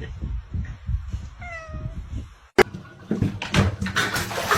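A cat gives one short, falling meow about a second and a half in, over low rumbling noise. A sharp click comes a little past halfway, followed by busier mixed noise.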